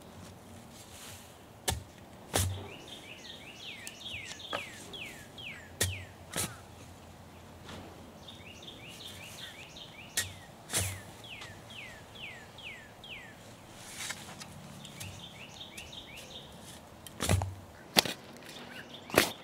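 Shovel blade chopping into root-filled soil, sharp strikes that mostly come in pairs every few seconds, the loudest near the end. A bird sings runs of quick, repeated notes, each sliding downward.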